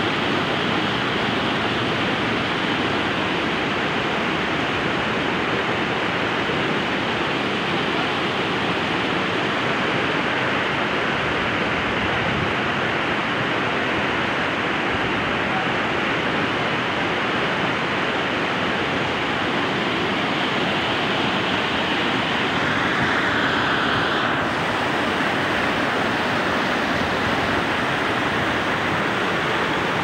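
Fast, turbulent mountain stream rushing over rocks and boulders: a steady, even roar of white water.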